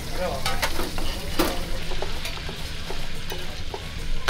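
Kofte kebab skewers sizzling on a grill, with a few sharp clinks and knocks of metal skewers and pans.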